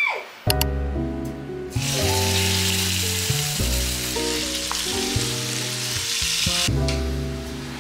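Tocino (sweet cured pork) sizzling as it fries in oil in a nonstick frying pan. The sizzling comes in about two seconds in, under background music.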